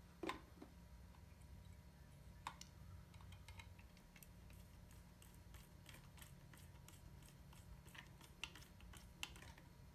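Faint, scattered small clicks and taps of fingers and a small screwdriver working wires into the screw terminals of a motor driver board, over near-silent room tone.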